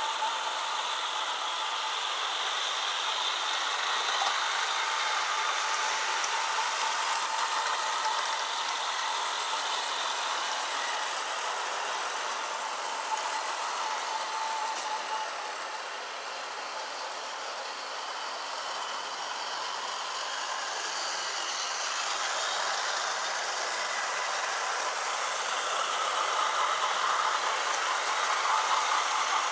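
O gauge model train running on its track: a steady mechanical rattle and clatter of wheels and motor gearing, a little quieter about halfway through and louder near the end.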